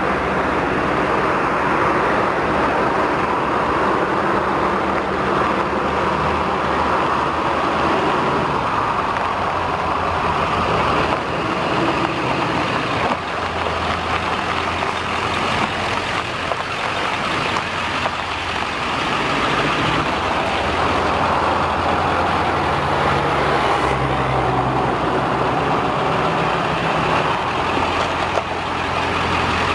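1999 Ford F450 truck's engine running steadily, its low hum shifting slightly a few times.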